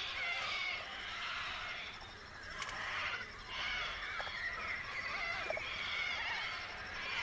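A flock of little corellas calling noisily: many harsh, overlapping screeches with a brief lull a couple of seconds in.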